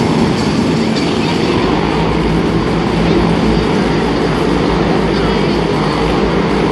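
Motorcycles circling inside a steel-mesh globe of death, their engines running loudly and steadily.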